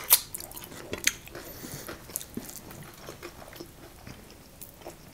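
Close-miked eating sounds of people eating curry and flatbread with their hands: chewing and mouth clicks, with a few sharper smacks near the start and about a second in.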